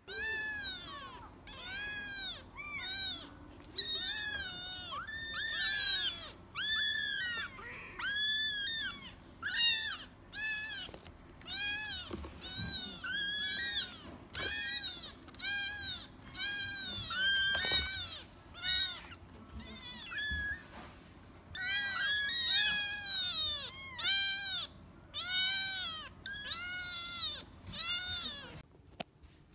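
Young kittens mewing over and over: a long string of short, high-pitched, arching cries, a little more than one a second, with calls now and then overlapping.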